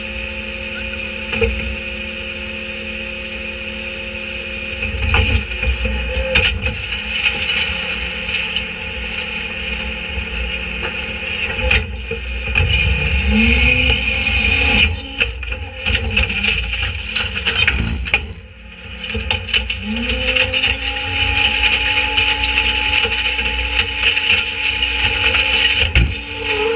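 Diesel engine and hydraulics of an Autocar Leach rear-loader garbage truck running as the packer blade cycles to sweep and compact a box spring in the hopper. The engine pitch rises twice as the truck speeds up for the packing stroke, about halfway through and again later. Over it come a few knocks and creaks from the load and the hopper.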